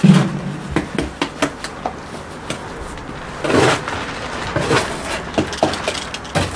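Handling noise close to the microphone: a heavy thump at the start, then scattered knocks and clicks, with a short rustle of a jacket brushing past about three and a half seconds in.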